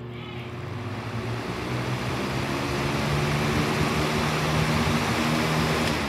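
Lasko B20201 box fan spinning up: a low motor hum under a rush of air from the blades that grows louder over the first few seconds, then holds steady.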